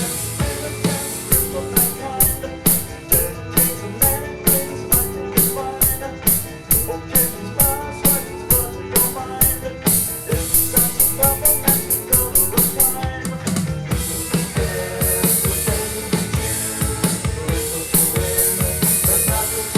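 Drum kit played along to a 1960s psychedelic pop song recording: a steady beat of about two to three strikes a second, denser strikes around ten seconds in, then cymbals ringing in a steady wash from about fourteen seconds in.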